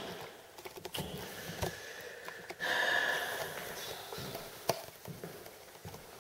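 Pad of a T-bar floor-finish applicator swishing across a hardwood floor as it spreads the wet finish, with scattered light knocks and one louder swish about halfway through.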